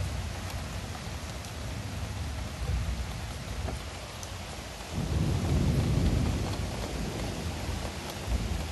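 Thunderstorm: steady rain falling, with a low roll of thunder that swells about halfway through and fades away.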